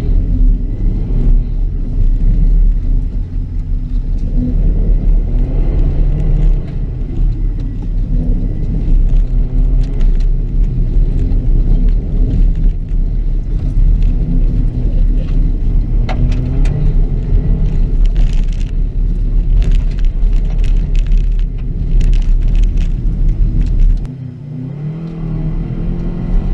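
2006 Subaru WRX's turbocharged flat-four engine running hard on a dirt rallycross course, with a heavy low rumble and scattered sharp clicks of stones and dirt thrown against the car. Near the end the engine note drops away briefly, then climbs again as it revs back up.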